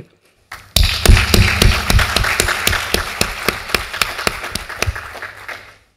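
Audience applauding. It starts just under a second in, with single claps standing out, and fades away near the end.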